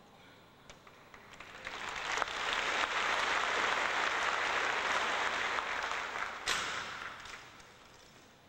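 Audience applauding, swelling over a couple of seconds, holding, then dying away near the end. A few sharp clicks stand out over it.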